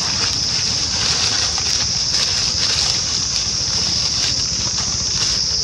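Steady outdoor ambience: a continuous high-pitched hiss with a low rumble beneath it, and faint rustling of dry leaves under a walking monkey.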